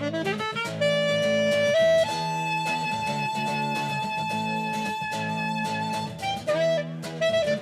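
Instrumental music with no vocals. A lead instrument plays a short rising run, then holds one long high note for about four seconds over sustained accompanying chords.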